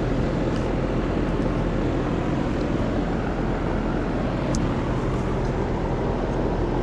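2008 Trane XB13 4-ton central air conditioner condensing unit running: a steady low hum from the compressor under the even rush of the condenser fan.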